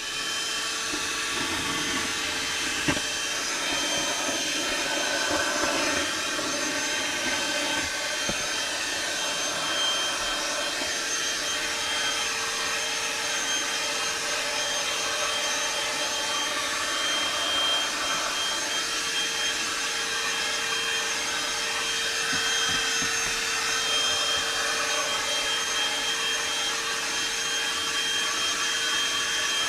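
Einhell PXC TE-VC 18 Li cordless hand-held vacuum cleaner running steadily, a motor whine over a rush of air, as it sucks up debris from popped balloons. There is one sharp knock about three seconds in.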